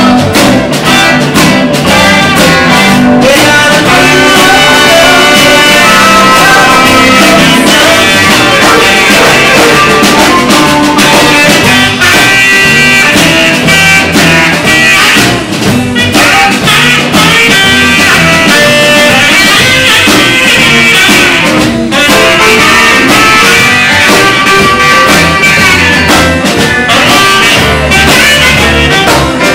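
Live band playing a Motown-style oldies number, loud and without a break.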